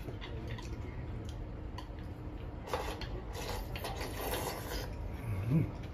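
A person slurping soup from a bowl, a noisy sip lasting about two seconds in the middle, followed near the end by a short low hum.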